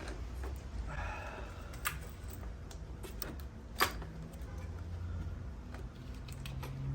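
Scattered light clicks and taps of hand tools and small metal parts being handled, the sharpest click about four seconds in.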